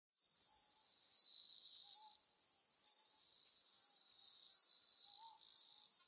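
Taiwan umaoi katydid (Hexacentrus unicolor) singing: a continuous, very high-pitched buzz broken by louder pulses about one to three times a second.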